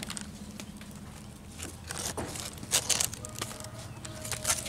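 A baby monkey handling the camera up close: several short scratchy rubbing and knocking noises on the microphone, bunched about two seconds in, around three seconds and near the end, over a steady low hum.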